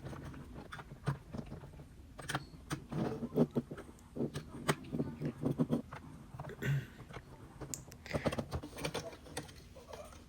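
Light, irregular clicks and taps of small plastic and metal parts being handled and fitted as a Nintendo Switch dock is reassembled, with denser runs of clicking in the middle and near the end.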